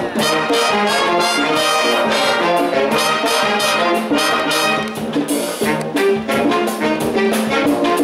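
Youth wind band playing a Cuban-style Latin piece: brass chords and melody over a steady percussion beat.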